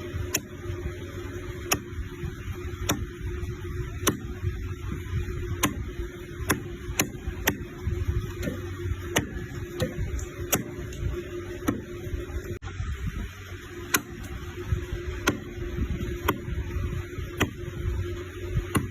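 Knife cutting pork leg: sharp chopping knocks about once a second at an uneven pace, over a steady low hum.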